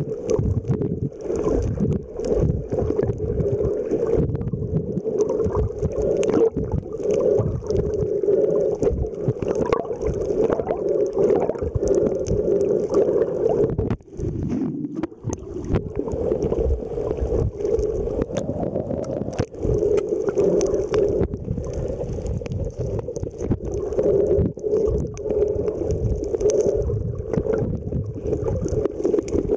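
Muffled underwater water noise from a camera held beneath the surface by a swimming snorkeler: continual sloshing and low rumbling over a steady hum, with a brief drop about 14 seconds in.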